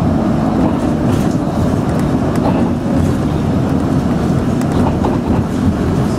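Steady low rumble of a city bus's engine and tyres heard from inside the cabin while it drives, with a few faint clicks and rattles.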